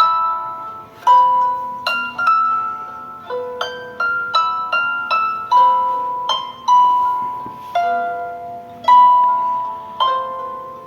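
Samsung Galaxy Young 2 ringtone: a melody of plucked, harp-like notes, each struck sharply and fading, one or two notes a second.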